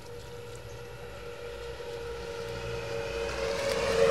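A motor vehicle approaching: a steady engine hum that grows gradually louder.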